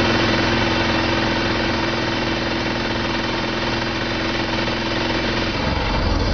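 M134 minigun firing a long continuous burst, its six rotating barrels cycling at about 50 rounds a second into a steady buzz. The sound changes about five and a half seconds in, with a heavier low rumble toward the end.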